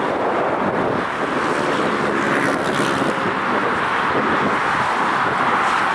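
Steady roar of jet engine noise across the airfield, with wind buffeting the microphone.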